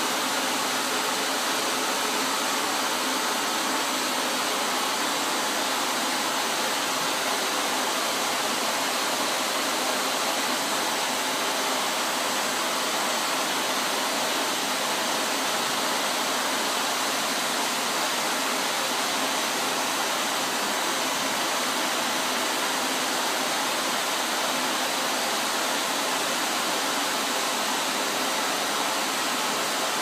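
Vacuum cleaner running, a steady rush of air with no change in pitch or loudness.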